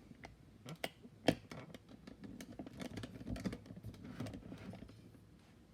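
Scattered small clicks, taps and rustles of a split-beam torque wrench being handled and set up, with a couple of sharper clicks about a second in.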